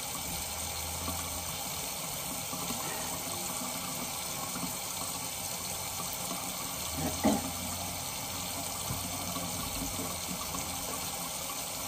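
Water running steadily from a tap, a constant rushing hiss. About seven seconds in there is one brief, louder sound with a sliding pitch.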